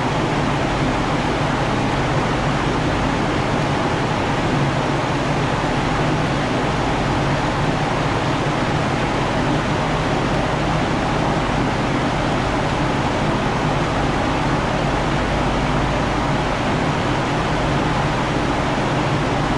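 Steady, loud rushing noise with a low hum beneath it, unchanging throughout: the running machinery of a dyno room.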